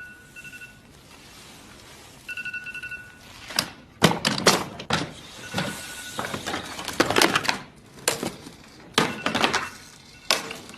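Alarm clock beeping in rapid pulses, which stops, starts again briefly, and then gives way to a run of sharp knocks and clatters as the clock is handled to turn it off. The knocks are the loudest sounds.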